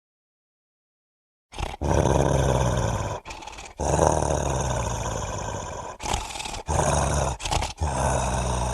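Sound-effect roars of a fictional giant ape (Gigantopithecus) creature. After about a second and a half of silence comes a long run of loud, low roars, broken by several short pauses.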